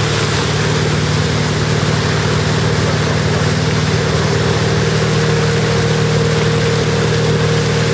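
Tow boat's engine running steadily under way, a constant low drone, over a steady rush of water from the wake.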